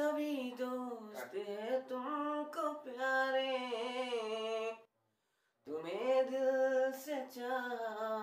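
A man singing a slow, sad Hindi song unaccompanied, drawing out long held notes. The voice stops for under a second about five seconds in, then the singing resumes.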